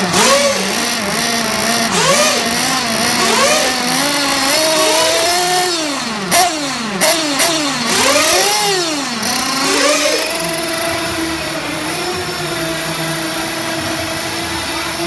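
Nitro RC buggy engines revving, the pitch sweeping rapidly up and down over and over, with a few sharp clicks partway through. About ten seconds in, the revving gives way to a steadier, even engine note.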